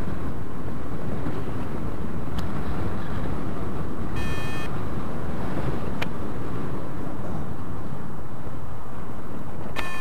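Steady wind rushing over the microphone of a paraglider in flight. A short electronic beep sounds about four seconds in, and another begins just before the end.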